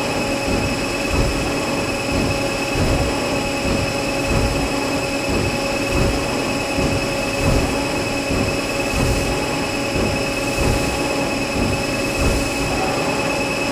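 Mazak CNC lathe running its OD threading cycle, the spindle turning at about 1,500 rpm with coolant flowing as the threading tool takes its passes along the part. A steady machine drone with several held tones over a constant hiss and an uneven low rumble.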